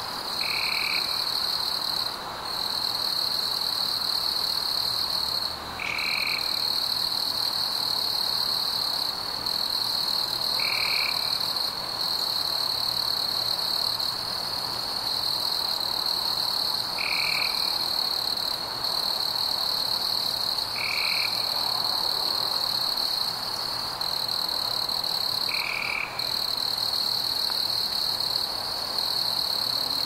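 Night chorus of frogs: a steady high-pitched trill with a few brief breaks, and a short, lower single note repeating about every four to six seconds.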